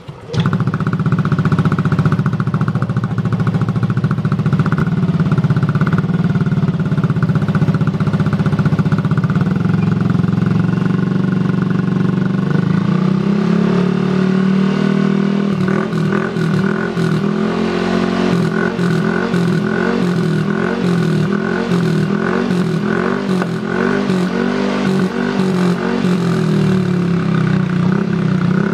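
Yamaha Aerox 155's single-cylinder four-stroke engine running through an aftermarket stainless-steel muffler with its dB killer fitted: a steady idle, then from about halfway the throttle is blipped again and again, the note rising and falling.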